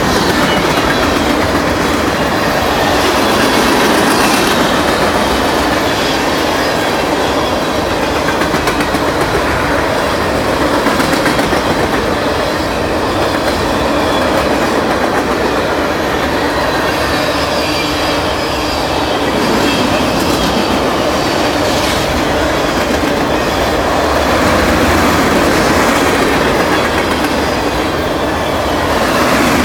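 Freight train cars rolling past: a steady, loud rumble with the clickety-clack of wheels over the rail joints.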